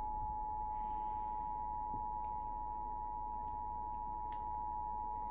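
Emergency Alert System two-tone attention signal: a steady alarm tone of two close pitches sounding together, announcing a severe thunderstorm warning.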